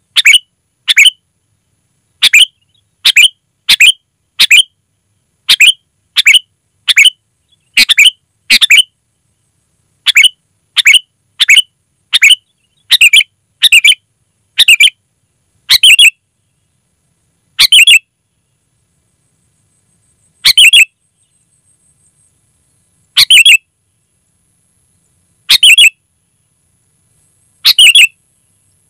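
Sooty-headed bulbul (kutilang) giving short, loud call notes, one or two a second at first, then spacing out to one every two to three seconds in the second half.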